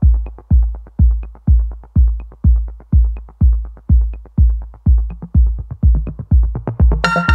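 Electronic background music with a heavy kick drum about twice a second and light ticks over it. Near the end a bright synth melody comes in.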